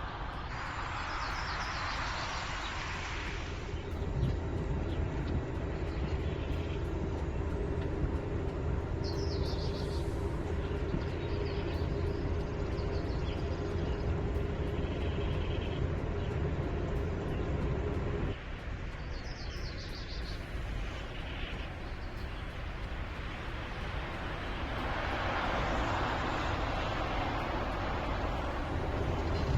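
Volkswagen ID. Buzz electric van driving: tyre and road noise with a steady hum, and birds chirping now and then. The sound changes abruptly about 18 seconds in.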